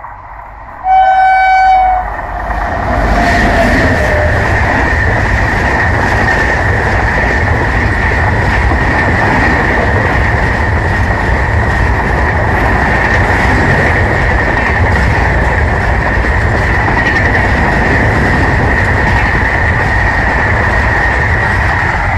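WAP7 electric locomotive sounding one horn blast about a second in, followed by a lower tone sliding down in pitch. Then the express train's LHB coaches run past at speed, a continuous loud rush of wheels on rail with a steady high-pitched ring over it.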